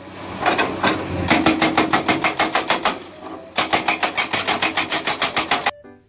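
Hydraulic breaker hammer on a Komatsu PC200 excavator pounding rock, a rapid run of blows about ten a second. It pauses briefly about halfway through, starts again, and cuts off suddenly just before the end.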